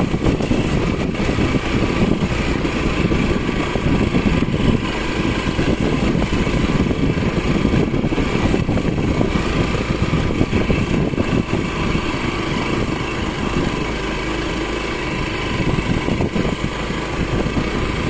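Motorcycle engine running steadily while the bike is ridden along a rough, rocky gravel track.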